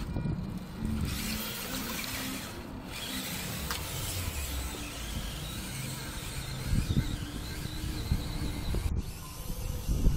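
Small electric motor and gears of a 1/24-scale Losi Micro rock crawler whirring as it crawls along towing a trailer, with a few low thumps near the end.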